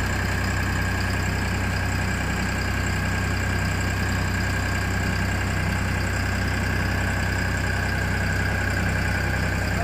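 Mini road roller's engine running at a steady idle, an even hum with a steady high whine above it.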